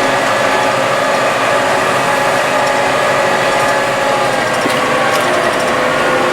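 An old McCormick tractor running steadily under way, its engine and gears giving a constant mechanical drone with a steady whine. A few sharp clicks come in near the end.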